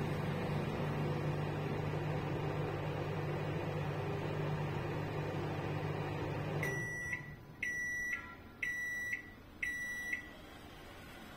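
Samsung convection microwave oven running with a steady hum that stops about two-thirds of the way through as the timer reaches zero, followed by four high beeps about a second apart signalling the end of the cooking cycle.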